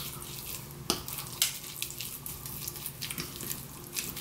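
Spoon stirring mayonnaise into a chopped crab-stick and vegetable salad in a glass bowl: wet, squishy mixing with irregular clicks and scrapes of the spoon against the glass.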